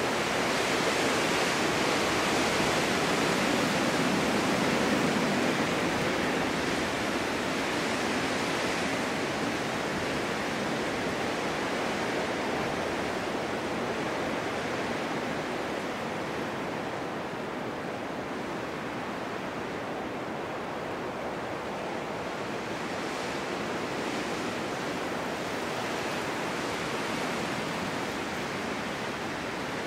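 Snowstorm wind blowing in a steady rush, a little stronger for the first several seconds and then easing slightly.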